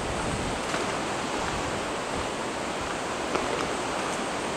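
Steady rush of rough sea surf breaking on a rocky shore, with a few faint clicks.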